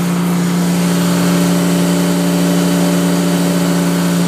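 A small engine powering the HDPE butt fusion machine runs at a steady speed, giving a loud, constant hum that does not change.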